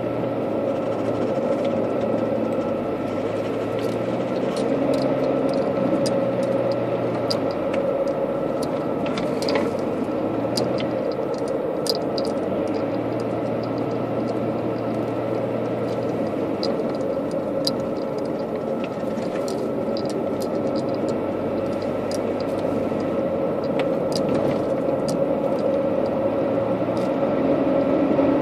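Car driving along a paved road: steady engine and tyre noise with a constant hum, dotted with many small ticks and clicks.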